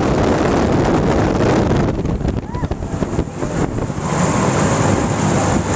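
Rushing wind buffeting the microphone on a Mondial Turbine thrill ride as it spins, a steady roar of air that drops briefly about two seconds in before building back up.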